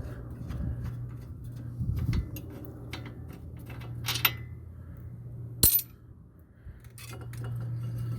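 Brake pads and their metal shims being worked out of a disc brake caliper, clinking and tapping metal on metal. A ringing clink comes about four seconds in and a sharp knock a little past halfway, over a steady low hum.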